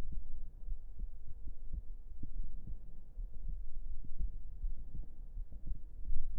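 Close-miked human heartbeat: a run of soft, low thumps over a steady deep rumble.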